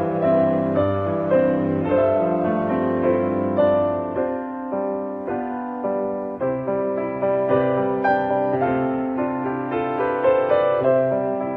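Background piano music, single notes and chords struck about twice a second.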